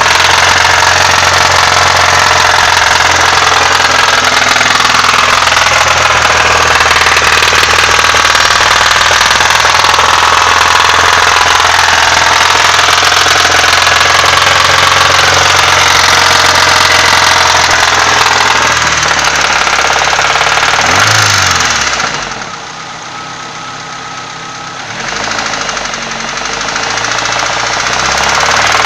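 Nissan SR20DE 2.0-litre inline-four engine running with a persistent knock that the owner cannot trace. The camshafts and their bearing caps look fine and show no visible cracks. The engine is briefly revved about two-thirds of the way through, then sounds much quieter for a few seconds before returning to full level.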